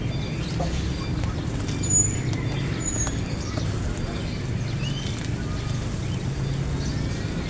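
Scissors snipping and plastic wrap rustling as a wrapped parcel is cut open, over a steady low background rumble. A few short high chirps come through about two and three seconds in.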